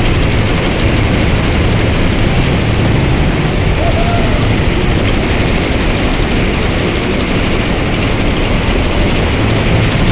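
Larson MegaWhirl flat ride running at about half speed: a steady, loud mechanical running noise with a low hum underneath.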